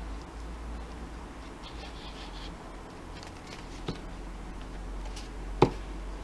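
Faint handling sounds over a low steady hum, with a small click about four seconds in. A sharp knock about five and a half seconds in, the loudest sound, is the glue bottle being set down on the tabletop.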